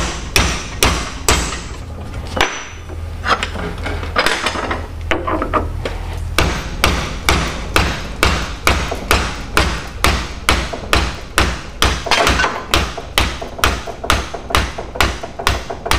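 Repeated hammer blows on a steel leaf-spring eye held in a bench vise, about two to three strikes a second and more even from about six seconds in. The blows are driving out the old spring bushing, which has been broken all the way through.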